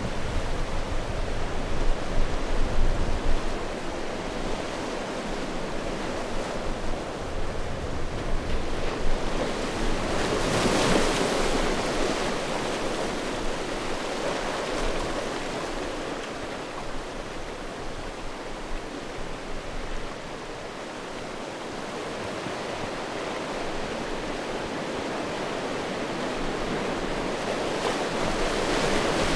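Sea waves washing onto a stony shore: a steady wash of surf, with one louder wave breaking about ten seconds in and the sea swelling again near the end.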